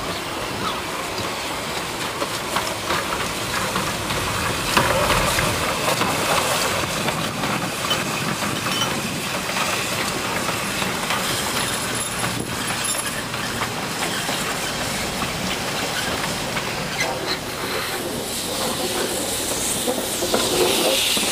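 Narrow-gauge steam train running on the rails, with steady wheel noise and clicking over rail joints. A hiss of steam rises near the end.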